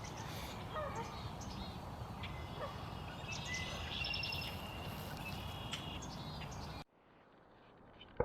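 Several small birds chirping and calling over a steady low outdoor rumble. Near the end the background drops away abruptly to a much quieter level.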